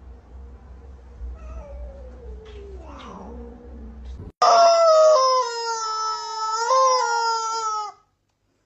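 A cat's long, loud yowl, starting about halfway through and held at a fairly steady pitch for about three and a half seconds before breaking off. Before it there is a quieter stretch with a low hum and a faint falling cry.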